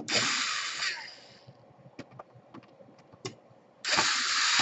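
Electric screwdriver running in two short bursts of about a second and a half each, backing out laptop case screws, with small clicks of screws and tools in between.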